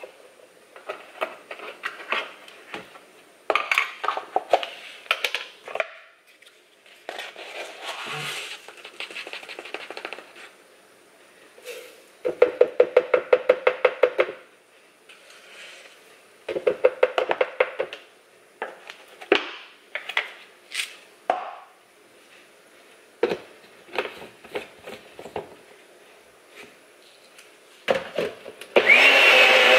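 Repeated bursts of rapid tapping and clatter as oats are shaken from a canister into a plastic blender cup. Near the end a single-serve bullet-style blender starts up, blending oat-and-banana waffle batter. The blender is the loudest sound.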